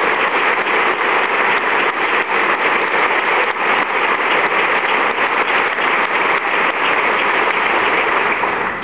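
Large audience applauding steadily, a dense patter of many hands clapping that dies down near the end.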